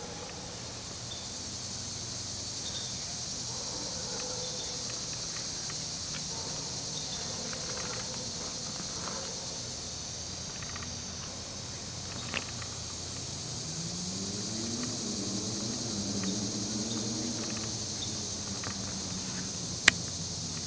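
Outdoor background: a steady high insect chirring, with a low hum that rises and then falls in the second half. A sharp click comes near the end, the loudest moment.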